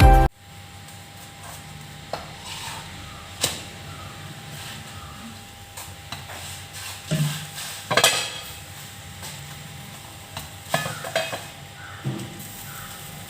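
Indian mackerel (ayila) frying in oil in a pan with a steady, soft sizzle, while a metal utensil knocks and clinks against the pan several times.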